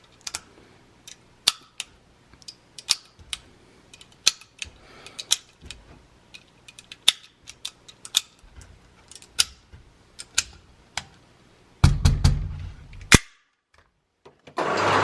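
A string of gunshots on a firing range, irregular single shots about one or two a second, each a sharp crack. Near the end a louder rushing noise ends in a final crack, then a brief silence and a steady noise sets in.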